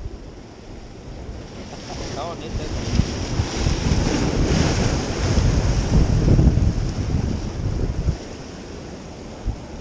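Ocean waves breaking and washing over jetty rocks. The surge builds a couple of seconds in, peaks in the middle and falls away about eight seconds in, with wind buffeting the microphone throughout.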